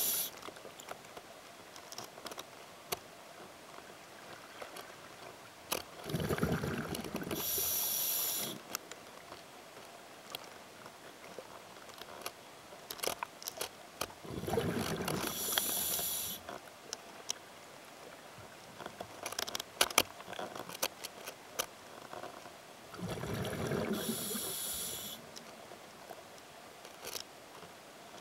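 A scuba diver breathing through a regulator underwater. Three breaths come about eight seconds apart, each a rumble of exhaled bubbles with a hiss of air near its end. Faint scattered clicks fall between the breaths.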